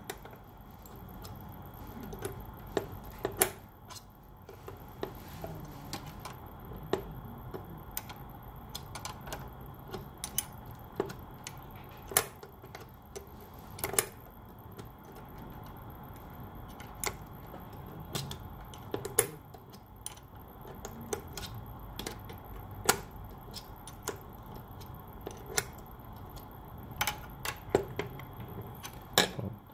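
Steel wrench clicking and clinking against the metal push-fit quick connector of a 3D printer's hot end as it is unscrewed in short turns: scattered sharp ticks at irregular intervals.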